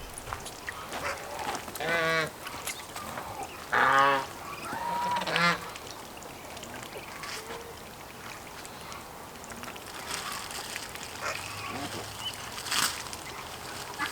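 Geese honking: three loud short honks about two, four and five and a half seconds in, the middle one loudest, then fainter calls.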